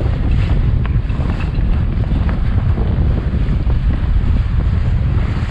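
Steady wind buffeting the microphone on the deck of a sailboat under way, with the wash of water and waves along the hull.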